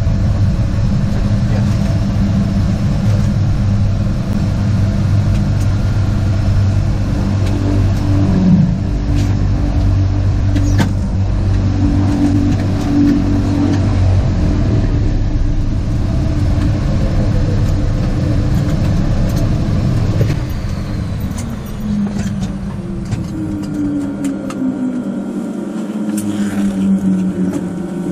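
Twin Otter's Pratt & Whitney PT6A turboprop engine and propeller running steadily, heard from inside the cabin. About two-thirds of the way in, the sound drops and the pitch falls steadily as the engine is shut down and the propeller winds down.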